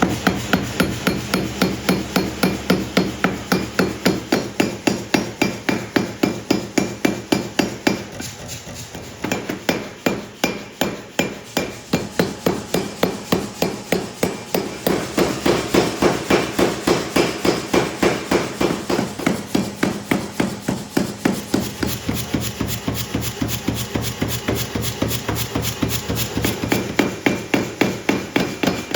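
Rapid, evenly spaced hammer blows forging a Damascus steel billet, about four strikes a second, over a steady machine hum. The blows ease briefly about eight seconds in, run softer for a few seconds, then grow strong again.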